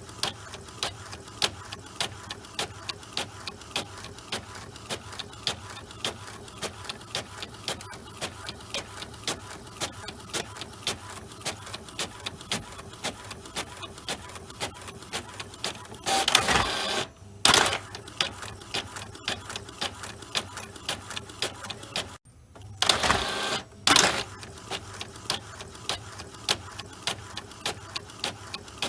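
Epson L4160 inkjet printer printing: the print head and feed mechanism tick sharply and regularly, about two to three times a second. Two louder stretches of mechanical whirring, about a second or more each, come just past halfway and again about four-fifths through.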